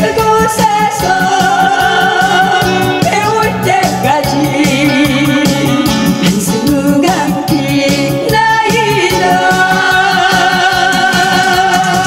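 A woman singing a Korean trot song through a handheld microphone and PA, holding long wavering notes with vibrato over backing music with a steady beat.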